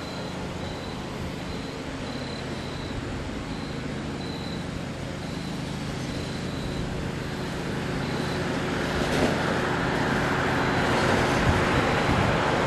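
Strong wind buffeting the microphone, with a steady low engine hum behind it and faint, short high-pitched beeps now and then. The noise grows louder over the last few seconds.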